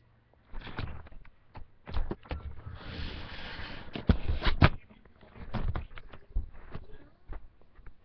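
Handling noise from a webcam being picked up and moved: irregular knocks, clicks and scrapes, with a stretch of rustling about three seconds in and the sharpest knocks just after it.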